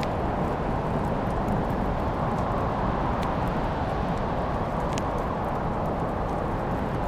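Wood fire crackling, with a few sharp pops over a steady low rushing noise; the clearest pops come about three and five seconds in.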